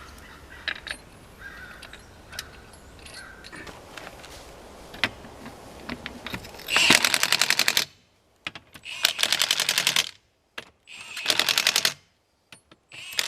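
Cordless Milwaukee 1/2-inch impact wrench hammering on a wheel's lug nuts in three rapid bursts of about a second each, with a fourth starting near the end. Light clicks and clanks come before the first burst.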